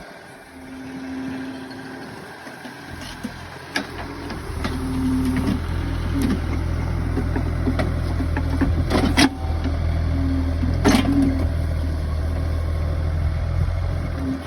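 Engine of the machine driving melaleuca timber piles, running steadily and growing louder about four seconds in, with a few sharp knocks, the loudest about nine and about eleven seconds in.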